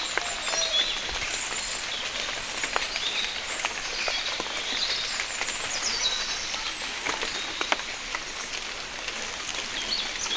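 Steady patter of rain with scattered single drops landing, and small birds chirping over it.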